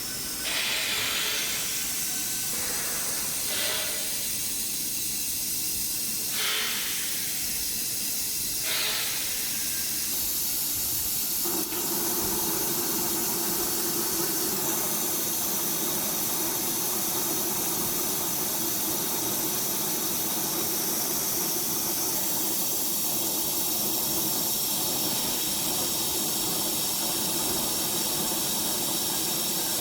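Glass laser drilling machine running with a steady hiss, rising in several brief swells during the first nine seconds. About twelve seconds in it settles into a steadier, fuller hiss with a low hum under it.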